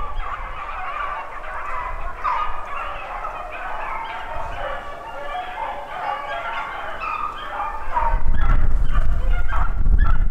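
A pack of beagles in full cry, many overlapping bays and yelps as they run a rabbit's trail. Wind rumbles on the microphone from near the end.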